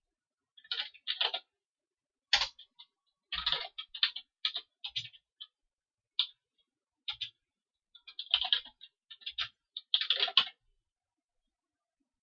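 Computer keyboard typing: irregular clusters of keystrokes with short pauses between them, stopping shortly before the end.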